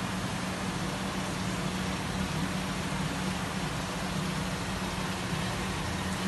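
Steady hum with an even hiss of rushing water from the aquarium pumps and filtration running the marine fish tanks.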